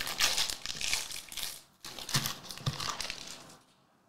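Foil wrapper of a 2021-22 Panini Mosaic Fast Break card pack crinkling as it is torn and peeled open by hand. The rustling comes in two stretches and dies away near the end.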